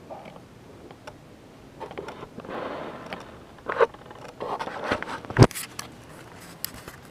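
Felt-tip marker scraping across a whiteboard in short, uneven strokes as words are written, with small taps of the tip against the board. About five seconds in there is one sharp, deeper knock.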